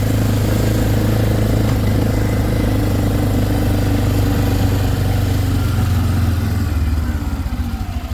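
Vehicle engine running steadily while driving. About seven seconds in the engine note drops as the vehicle slows, and it settles into a pulsing idle.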